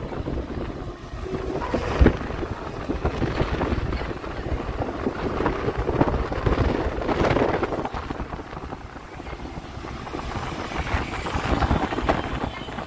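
Car driving along a road, heard from inside: steady road and engine noise with wind buffeting the microphone at the side window, swelling and easing. A sharp knock about two seconds in.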